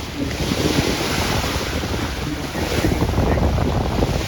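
Strong gusting wind buffeting the microphone with a heavy low rumble, over waves washing against a storm-battered shore.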